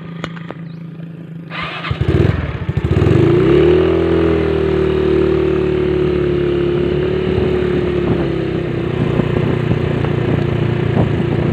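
Small motorcycle engine running low at first, then speeding up about three seconds in as the bike pulls away, and running at a steady pace while it is ridden along.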